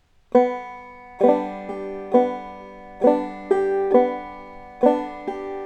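Clawhammer banjo played slowly: a single note, then three bum-ditty figures on a G chord, each a struck note starting on the second string followed by a brush and the fifth-string thumb, with the notes ringing on between strokes.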